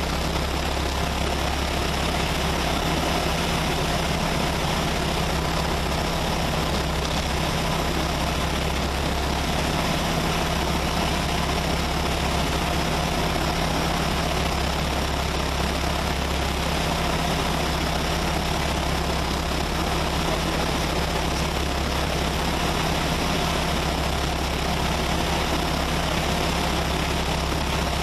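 Diamond HK36 Super Dimona's piston engine and propeller running steadily, an even drone with no change in pitch.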